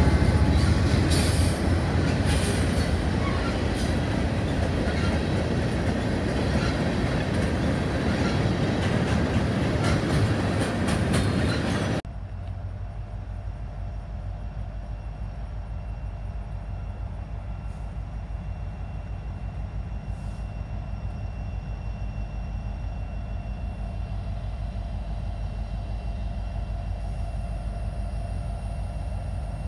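Norfolk Southern freight train passing close by: diesel locomotives running heavily, with the rattle and high squeals of wheels on the rails. About twelve seconds in, the sound cuts to a much quieter, steady low rumble of a diesel locomotive at a distance.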